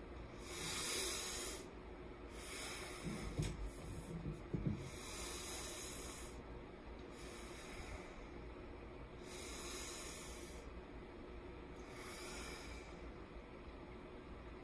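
A person breathing audibly through the nose: slow hissing breaths in and out every two to three seconds, with a few soft mouth clicks about three to five seconds in. It is a nose one week out from surgery to straighten a deviated septum.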